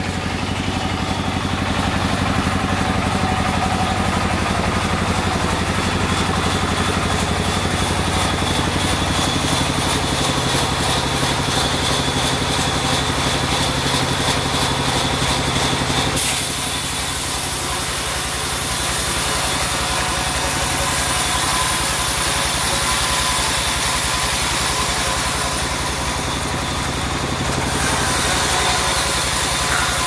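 Vertical band sawmill running steadily with a low machine hum. About halfway through the sound changes suddenly and a bright hiss comes in as the log is fed to the blade.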